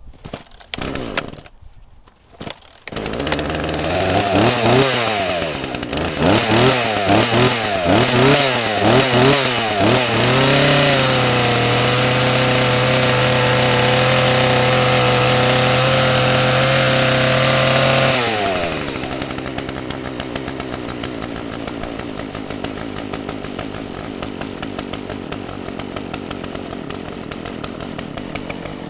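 Poulan Pro 295 chainsaw's two-stroke engine pull-started on the cord, catching after a few seconds. It is revved up and down several times, held at full throttle for about eight seconds, then drops back to a steady idle.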